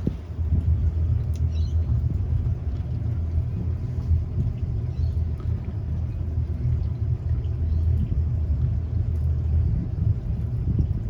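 Twin 300 HP Yamaha outboard engines running with a steady low rumble.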